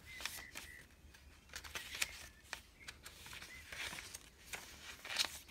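Paper pages of a handmade junk journal being turned by hand: irregular soft rustling and flapping of paper with light ticks and flicks as the pages fall.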